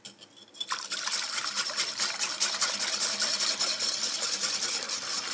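Wire whisk beating liquid in a glass bowl, a fast, regular scraping rhythm that starts about a second in.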